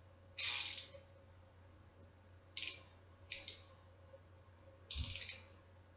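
Mastercraft 1/4-inch drive ratchet with a socket on it, its pawl clicking over the gear as the handle is swung back and forth, in four short bursts of rapid clicks. It is a coarse ratchet of roughly 40 to 45 teeth, not a fine tooth count.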